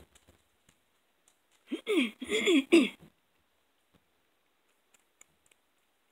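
Cat chewing raw whole prey, a rat pup, out of a bowl: faint, scattered clicks. About two seconds in, a loud voice breaks in for about a second and a half, in three short parts that each fall in pitch.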